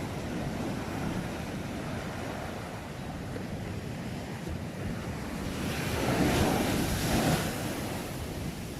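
Ocean waves washing on the shore, with one wave breaking more loudly about six seconds in. Wind noise on the microphone runs under it.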